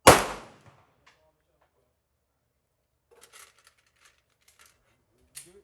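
A single pistol shot right at the start, its report dying away within about half a second, followed later by a few faint clicks.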